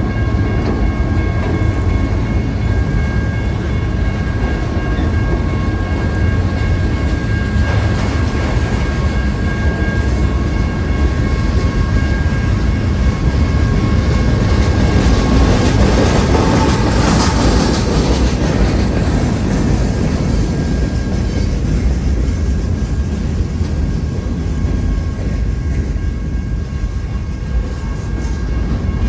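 Freight cars (autoracks and boxcars) rolling past: a steady rumble of steel wheels on rail, with a faint thin high whine over it for the first ten seconds or so.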